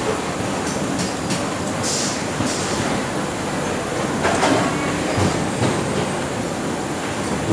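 Steady machinery noise of a production floor, with a short high hiss about two seconds in and a couple of brief louder bursts later.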